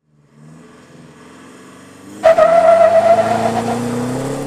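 Tuned 3.0-litre four-cylinder turbo diesel of a Holden Colorado ute, heard through its aftermarket exhaust: quiet low running at first, then suddenly much louder about two seconds in as it accelerates hard, the engine pitch slowly climbing under a steady high whine.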